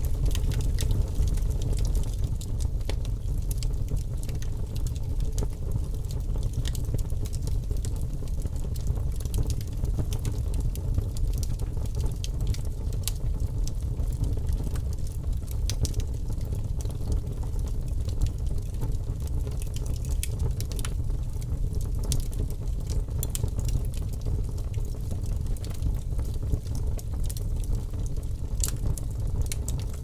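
Wood fire burning: a steady low rumble of flames with frequent sharp crackles and pops from the burning wood.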